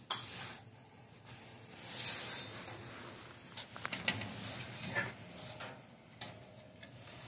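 Handling noises from wires and small tools being moved about on the dehydrator's open sheet-metal base: a sharp click at the very start, some rustling, and a cluster of light clicks about four seconds in.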